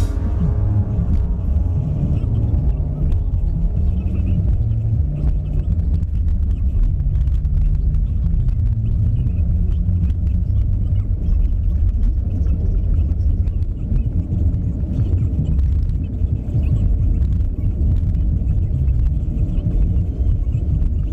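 Steady low rumble of road and engine noise inside the cabin of a moving car, a Hyundai Tucson SUV, cruising at a steady speed.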